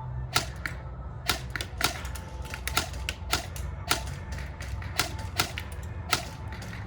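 Airsoft guns firing single shots in an exchange: a string of sharp cracks at irregular intervals, some louder and nearer than others, over a steady low rumble.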